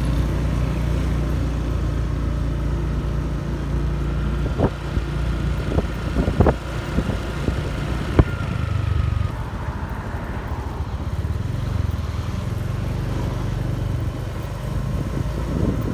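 Motorbike engine and road noise in city traffic: a steady low rumble, with a few sharp clicks around the middle.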